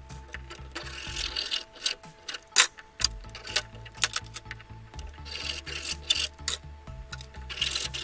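Hand hacksaw sawing through a small relay's case on a wooden block, in short spells of rasping strokes with pauses between, under background music. A sharp knock about two and a half seconds in, and scattered clicks of tools being handled.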